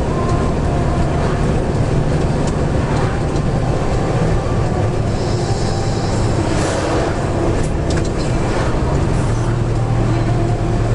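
A car driving at highway speed: continuous tyre and road noise with a steady low engine hum. About six and a half seconds in, an oncoming lorry passes with a brief rush of noise.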